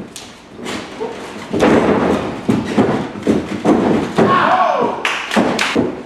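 Wrestlers grappling and striking in a wrestling ring: a rapid, irregular run of thuds and slaps from bodies, hands and feet on the ring canvas.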